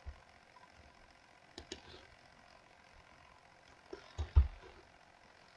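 A few faint computer mouse clicks, single and in pairs, a second or more apart, with near silence between them.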